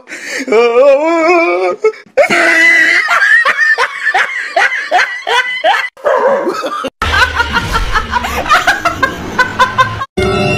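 People laughing hard in repeated bursts, after a high wavering cry in the first two seconds. Background music with a deep bass beat joins about seven seconds in, with the laughter going on over it.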